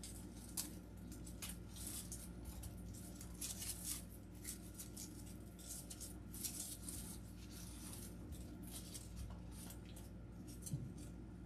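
Soft crackling and rustling of artificial flower stems and leaves being pushed into a grapevine wreath and handled, in scattered short clicks over a faint steady hum.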